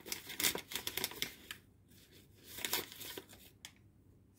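Paper sachet of baking powder crinkling and rustling as it is handled and tipped out, in two bouts with a short lull between.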